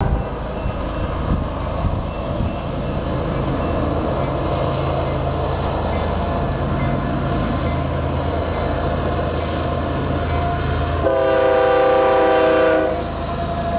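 Union Pacific diesel locomotives at the head of an empty coal train running steadily and drawing closer. About eleven seconds in, an air horn sounds one chord blast of about two seconds as the lead units pass.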